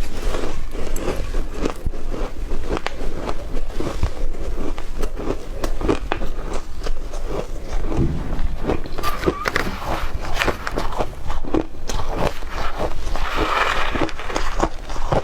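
Shaved ice being chewed close to the microphone: a dense, continuous run of small crunches.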